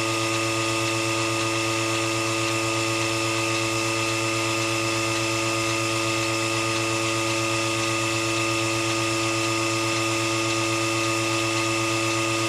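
Melasty electric milking machine's pump running steadily as it milks a cow through the attached teat cups: an even motor hum with a constant whine.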